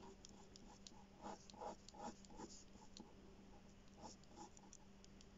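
Faint scratching of a pen drawing short curved strokes on paper. The strokes come in a cluster about a second and a half to two and a half seconds in and again around four seconds, over a steady low hum.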